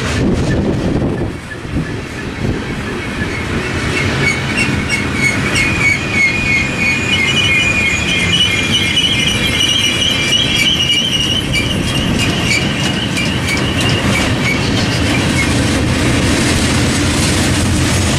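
Freight train cars rolling past with a steady rumble and clickety-clack of the wheels on the rail joints. From about four seconds in the wheels squeal in a high, wavering whine, which fades near the end.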